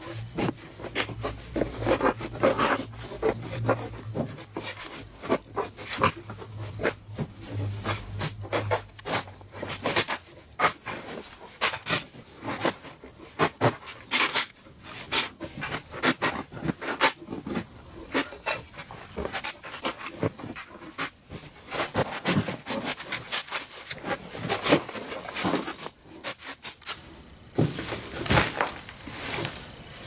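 Wooden beehive frame parts and hive boxes knocking and clattering as they are taken out of a cardboard box and stacked on a table, with cardboard rustling between the knocks. A low hum underneath stops about ten seconds in.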